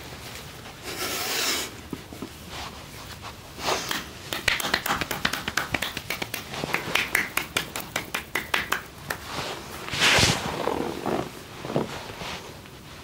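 Hands striking a body in a massage: a long run of quick, even tapping slaps at several strikes a second, with brushing rubs of hands on skin before and after it.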